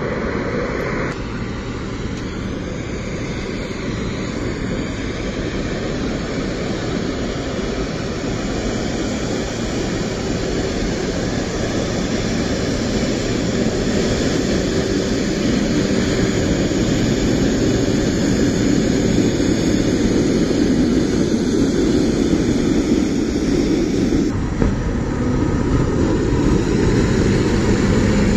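Boeing 777's jet engines running at taxi power: a steady, dense engine noise that grows slowly louder as the airliner taxis closer, broken by abrupt changes about a second in and near the end where the recording is cut.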